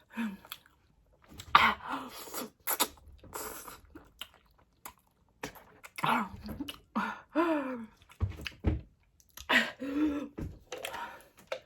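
A person chewing very spicy noodles between short pained mouth and throat sounds: breathy gasps, sniffles, coughs and brief whimpers, as she is close to crying from the chilli burn.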